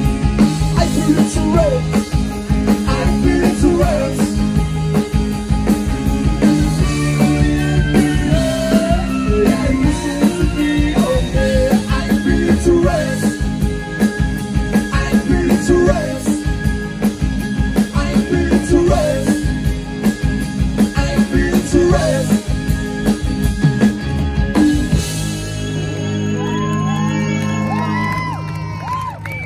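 Rock band playing live, with a driving drum beat under guitars and some singing. Near the end the drums stop, leaving held chords and sliding guitar notes.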